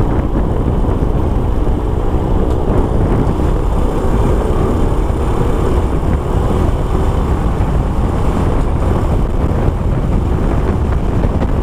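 Honda Supra X 125 underbone motorcycle's single-cylinder engine running steadily while riding, largely buried under a heavy wind rumble on the microphone.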